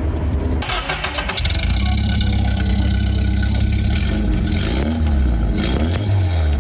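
Nissan 910 Bluebird's engine running through its freshly modified 3-inch exhaust, revved up about half a second in and held, with the pitch rising and falling again near the end.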